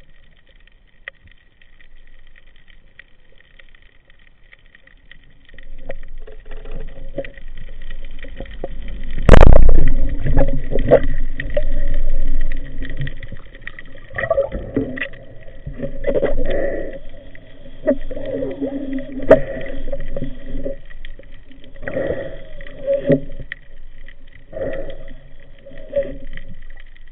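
Muffled water noise heard through an underwater camera housing during a spearfishing dive: after a few quiet seconds, irregular sloshing and gurgling sounds start, with one sudden loud splash about nine seconds in, and the sloshing carries on in uneven surges about every two seconds as the diver swims near the surface.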